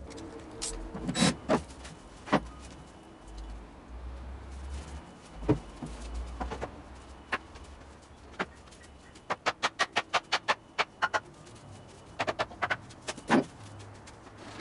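Workshop knocks and clatter of pine boards being picked up, moved and set down. Scattered sharp knocks, a quick run of about a dozen taps a little over halfway through, and a short cluster of knocks near the end.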